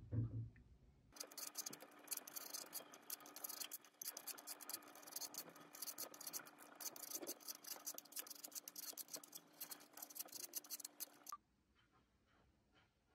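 Vegetable peeler scraping the skin off an apple in quick, rough, repeated strokes, starting about a second in and stopping suddenly near the end. A brief low thump comes just before.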